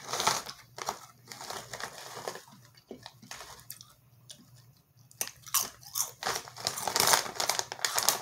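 A chip bag rustling as a hand reaches in, then Rap Snacks wavy potato chips crunched and chewed. The crunching is quieter in the middle and densest over the last few seconds.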